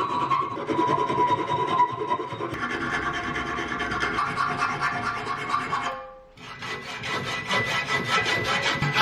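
Hand filing or sanding: a continuous rasping scrape of a file or abrasive worked back and forth on a part. It breaks off sharply about six seconds in and starts again moments later.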